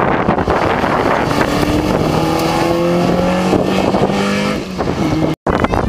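Rally car engine running hard under acceleration, its note climbing and stepping in pitch as it pulls away, over heavy wind buffeting on the microphone. The sound cuts out briefly near the end.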